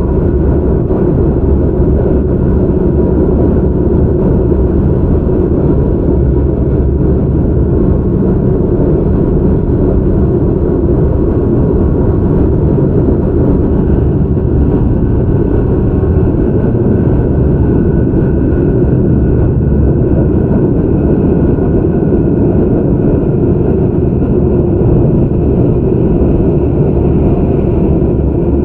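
Interior running noise of a Tobu 634 type resistance-controlled electric train: a steady, loud, low rumble of wheels on rail and running gear. A faint high whine joins in about halfway through and holds.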